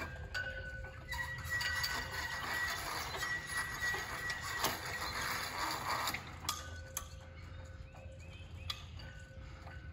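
Flagpole halyard ropes running through the pulleys as flags are lowered: a thin squeak held for several seconds and a few sharp clanks of metal against the poles, over a low rumble.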